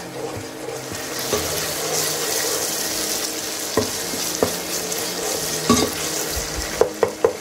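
Masala paste sizzling as it fries in hot oil in a pot, stirred with a wooden spatula. The spatula knocks against the pot a few times, several in quick succession near the end.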